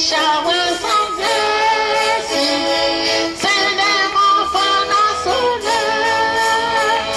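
Music: voices singing sustained notes with instrumental accompaniment.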